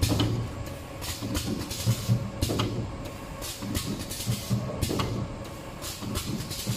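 Automatic alcohol prep pad making and packing machine running: a steady hum under repeated sharp mechanical clacks, about two a second in an uneven rhythm.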